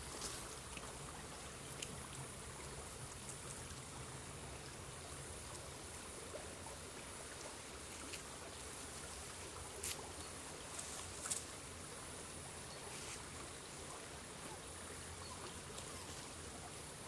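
Shallow forest stream flowing steadily over a sandy bed, an even rush of water, with a couple of brief clicks about ten and eleven seconds in.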